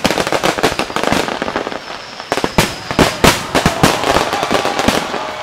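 Fireworks display going off: a dense run of bangs and crackling bursts, with a cluster of louder bangs about halfway through.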